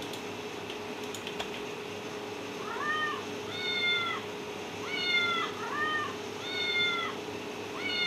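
Recorded cat meows played back with the high frequencies cut away by EQ, so they sound muffled, as if the cat were behind a microwave door. A series of about six meows starts about three seconds in, over a faint steady hum.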